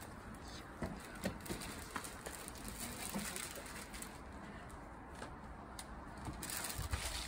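Outdoor ambience with scattered small knocks and clicks of objects being set down and handled on a table, over a low wind rumble on the microphone that grows louder near the end.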